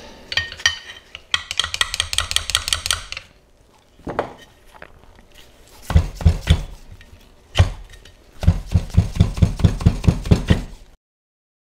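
Metal clinking and tapping on the aluminium halves of a snowblower auger wormcase as they are pried and worked apart with a metal tool. Two fast, even runs of taps, several a second, come about a second in and again in the last few seconds, with a few single knocks between them.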